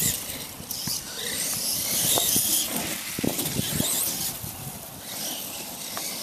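Electric motors and gear trains of radio-controlled Clod Buster monster trucks whining, the pitch rising and falling repeatedly as the drivers work the throttle.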